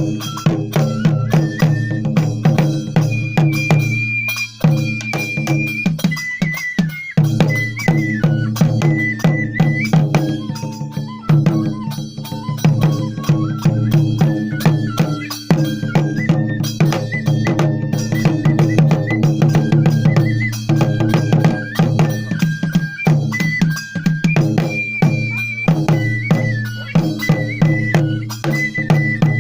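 Traditional Japanese shrine festival music, the kind that accompanies kagura: fast, dense drumming with metallic clanking percussion under a high bamboo flute playing held notes.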